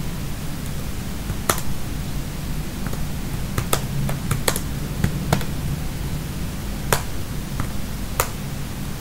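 Keystrokes on a computer keyboard: about a dozen sharp clicks at uneven intervals, over a steady low hum.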